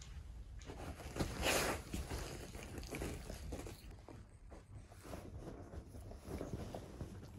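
Border collie licking a person's hand in faint wet licks, with soft rustling of a duvet; a louder rustle about a second and a half in.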